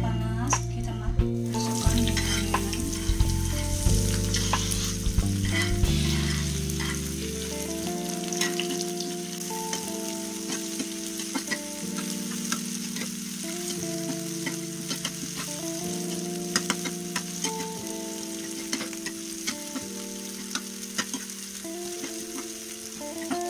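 Sliced chillies, garlic and salam leaves dropped into hot oil in a ceramic-coated frying pan start sizzling about a second and a half in and keep sizzling steadily. A metal spatula stirs them, with small scrapes and clicks against the pan.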